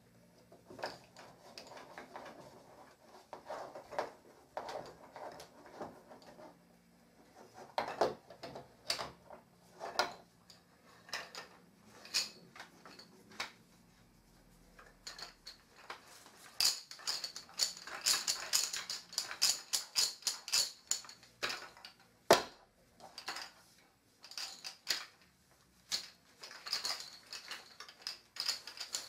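Wooden parts of a baby play gym knocking and clicking together as they are fitted by hand, with the wooden beads on the rods clacking and rattling. There are scattered single knocks at first, then two busier runs of quick clattering past the middle and near the end.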